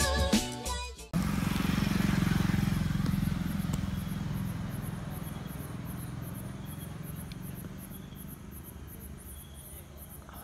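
Background music cuts off about a second in, giving way to a vehicle engine running and slowly fading away. Crickets chirp in a steady rhythm of about three pulses a second throughout.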